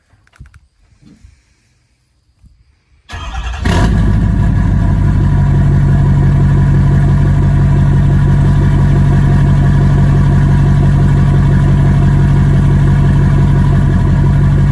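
Ford Super Duty's Power Stroke diesel cold-started: quiet for about three seconds, then it cranks briefly and catches, and settles into a loud, steady idle.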